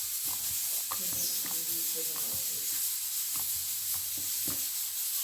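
Soft slime being stretched and squeezed by hand, giving a run of small wet clicks and crackles over a steady hiss.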